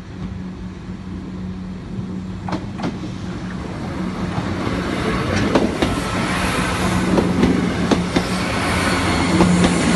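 Diesel passenger train approaching and passing over the level crossing, growing louder throughout, with a steady low engine drone. Its wheels click sharply over the rail joints, more often from about halfway in.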